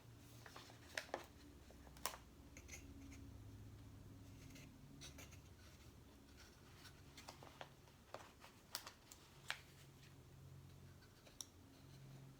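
Faint handling of stickers on a box: scattered sharp clicks and ticks with light rustling as stickers are peeled and pressed on, over a low steady hum.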